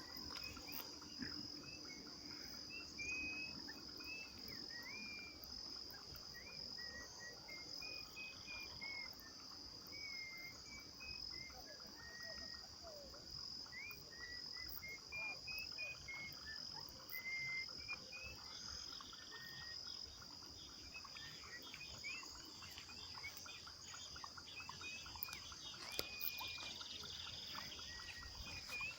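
Dusk nature chorus: a steady high-pitched trill of crickets or other insects, with birds calling in many short whistled notes that slide up and down.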